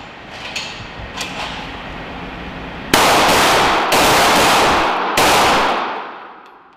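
Three shots from an M17 9 mm pistol, roughly a second apart, each ringing on in the reverberation of an indoor firing range, the echo fading away near the end. A few fainter cracks come in the first second or so.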